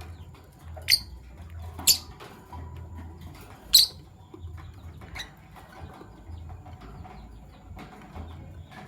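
Fischer's lovebirds giving short, shrill chirps: three loud ones at about one, two and four seconds, and a fainter one a second later.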